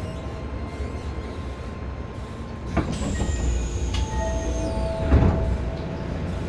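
Keisei 3000-series electric train running, with a steady low rumble of wheels on track. A sharp click comes a little under three seconds in and a heavier thump about five seconds in. A faint high whine sounds in the middle and a steady mid-pitched tone over the last two seconds.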